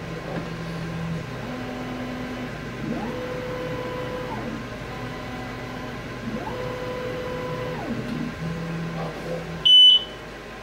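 xTool S1 laser engraver's stepper motors whining as the laser head traces the frame outline of the job. There are several moves in a row, each a steady tone that glides up as it starts and down as it stops. Near the end comes a short, loud high beep.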